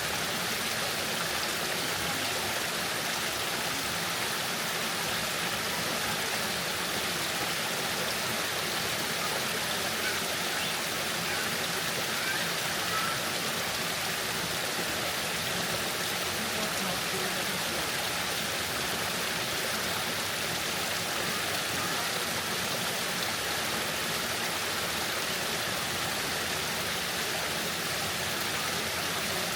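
Waterfall: a steady, even rush of falling water that stays unchanged throughout.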